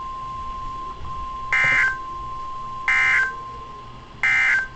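Emergency Alert System SAME header on NOAA Weather Radio: three short warbling data bursts about a second and a half apart, the digital code that opens an alert message, over a steady single-pitch tone.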